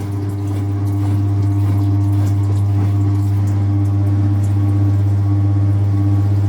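Speed Queen top-loading washing machine running, a steady electric hum over the sound of moving water that swells over the first second and then holds even.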